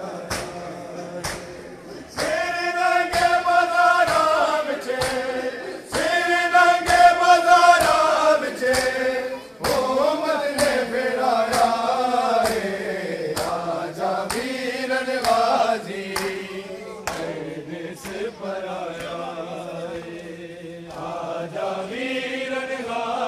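A crowd of men chanting a noha, a Shia mourning lament, in unison in long held notes. Rhythmic chest-beating (matam) strikes keep time at about two a second.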